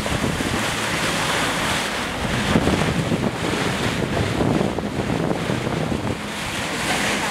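Water rushing and splashing past the hull of a boat under way, with wind buffeting the microphone.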